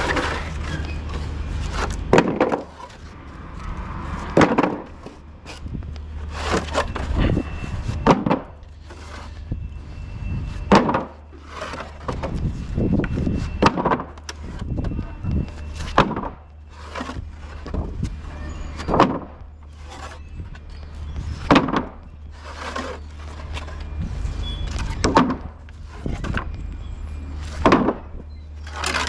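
Empty wooden pallets being pulled off a stack and dropped onto paving, with repeated sharp wooden knocks and clatters every second or two over a low steady rumble.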